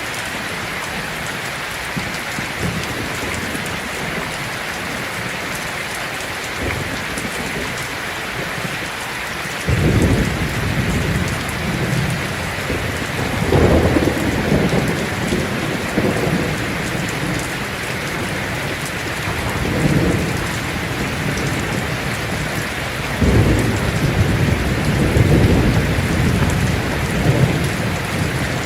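Heavy rain falling steadily on a tin roof, with thunder rumbling in about a third of the way in and rolling back several times, the longest and loudest roll near the end.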